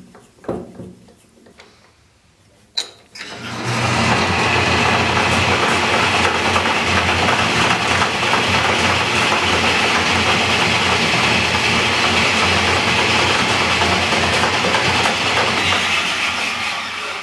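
A few light clicks and knocks of handling, then about three and a half seconds in a small metal lathe starts and runs steadily at speed, drilling a 0.234-inch hole into the end of a small quarter-inch shaft. It winds down and stops just before the end.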